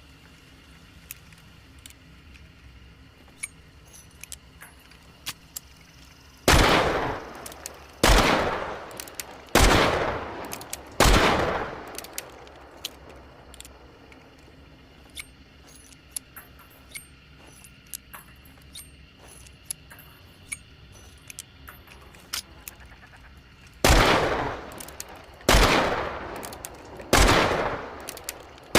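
Schofield Smith & Wesson Model 3 single-action revolver firing seven shots in two strings, four about a second and a half apart and then three more after a pause. Each report rings on as it dies away. Faint small clicks fall in the pauses between.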